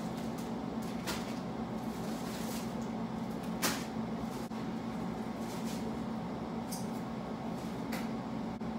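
Steady low hum of room background noise, with a few soft clicks scattered through it, the sharpest about three and a half seconds in.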